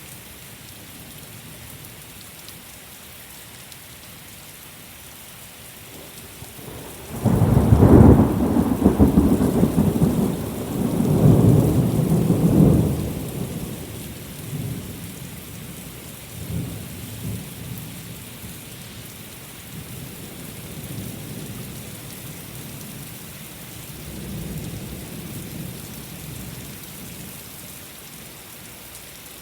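Steady rain hiss; about seven seconds in, a loud thunderclap breaks into rumbling that lasts about six seconds, followed by fainter rolls of thunder that die away.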